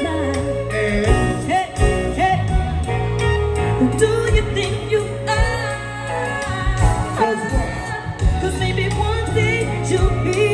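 Live R&B music over a concert sound system: a woman singing over a backing track with a deep, steady bass line and drums.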